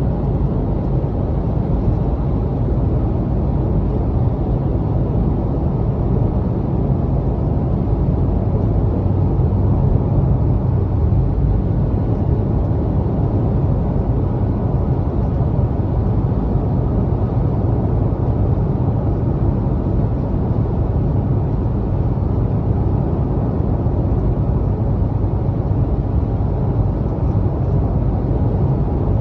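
Steady road and tyre noise of a 2019 Honda Insight on the move, heaviest in the low end. Any rattle is faint and buried under it; the owner hears a rattle there that he takes for a cylinder, which the dealership put down to road noise.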